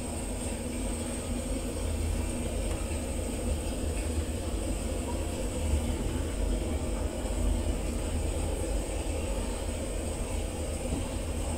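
Steady low rumble with a faint hiss and a thin, steady high whine: the room noise of an indoor gallery, with no distinct events.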